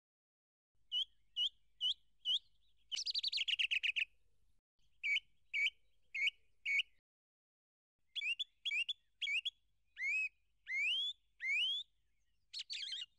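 A bird singing in phrases of short rising whistled notes, with a rapid trill about three seconds in and slower, drawn-out upward-sliding notes later on.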